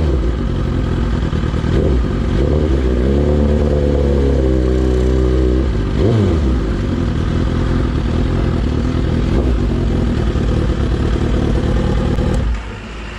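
Suzuki GSX-R1000 inline-four running through an Austin Racing exhaust muffler. Its note shifts and falls in pitch with the throttle, with a quick rev blip about six seconds in. The level drops near the end.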